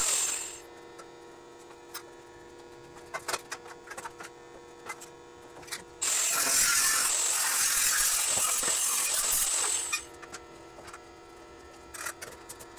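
Angle grinder grinding steel tubing in two loud bursts: the first dies away about half a second in, and the second runs for about four seconds starting about six seconds in. Between the bursts there is a steady hum with light metal clicks and taps.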